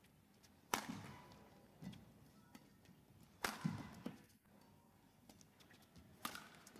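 Badminton rackets striking a shuttlecock: three sharp hits a little under three seconds apart during a rally. Softer thuds of the players' footwork fall between them.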